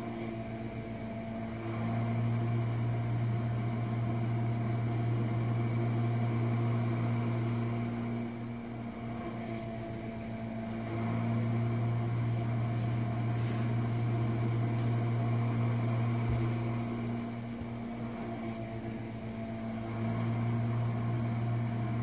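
Jenn-Air dishwasher running its rinse-only cycle: a steady low motor hum that swells louder for several seconds, then drops back, three times over.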